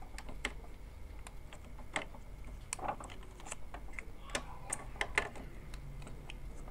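Irregular small plastic clicks and taps as the ink dampers and ink tubes of an opened Epson L3110 ink-tank printer are handled and unclipped.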